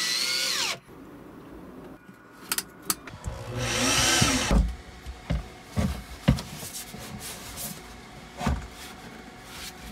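Cordless drill driving screws into a wooden mounting board: the motor whirs up in two short runs, near the start and about four seconds in, each rising in pitch and then winding down. Several sharp knocks and clicks follow.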